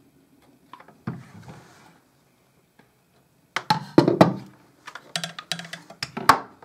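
Wooden parts of a handmade rubber band gun knocking and clicking together as the launcher is taken off and set down and the gun body is handled. There is a single knock about a second in, then a quick cluster of sharp clicks and knocks from about three and a half seconds on.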